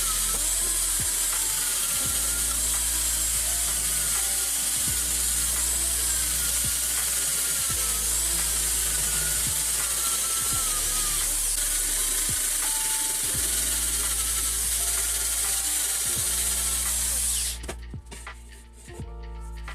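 A handheld power tool scouring metal runs steadily with a faint wavering squeal, then stops suddenly about 17 seconds in. Background music plays underneath.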